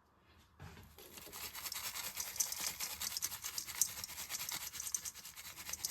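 Rapid, continuous rustling shake of packaging while seasoning chicken, starting about half a second in.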